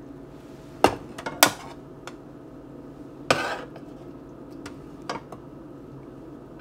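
A serving spoon knocking and clinking against a saucepan and plate as cooked egg noodles are scooped out: two sharp knocks about a second in, one more about three seconds in, and a few lighter taps.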